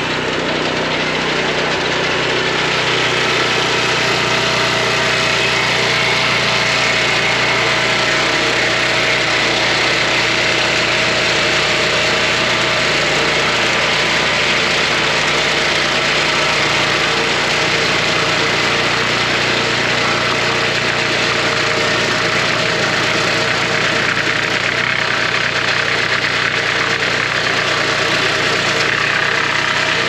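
Gas-engine portable band sawmill running steadily under load as its band blade cuts a slab through a very hard pecan log. The sound is a constant engine drone with a steady higher whine over it.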